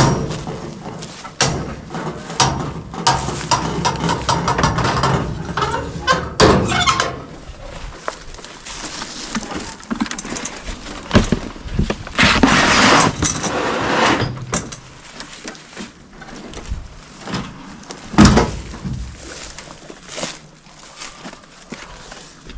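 A run of knocks, clatters and bangs, with a loud thud about 18 seconds in.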